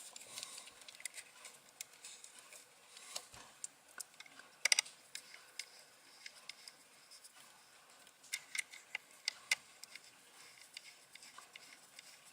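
Faint, scattered small clicks and taps of hands working jumper wire pins into a screw terminal connector on a circuit board, with a short cluster about four and a half seconds in and another from about eight to nine and a half seconds.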